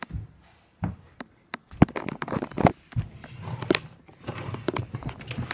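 Irregular knocks, clicks and rustling from a handheld phone being carried and handled while it films.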